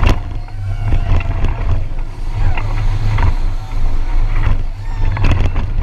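Boat running at speed close to the water: wind buffeting the microphone and water rushing and splashing past the hull, with sharp knocks as the hull hits waves right at the start and again near the end.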